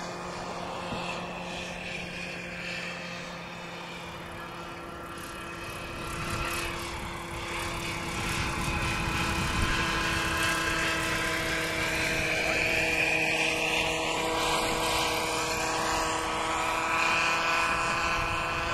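Radio-control scale Eurocopter EC120 model helicopter flying past, a steady whine with a rotor sound that grows louder as it comes closer. In the second half one of its tones rises in pitch.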